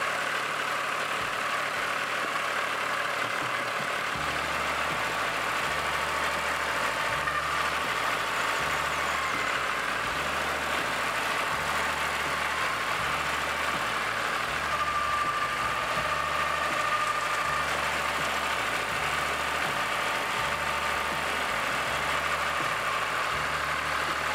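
Terraplane TD38 (Dongfeng) compact diesel tractor engine running steadily while the tractor works its front loader. A brief steady higher tone comes in about two-thirds of the way through.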